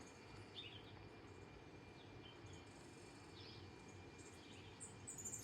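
Faint, scattered bird chirps from a cat-entertainment video of birds and chipmunks playing on a screen, over low steady background hiss; a short cluster of higher chirps comes near the end.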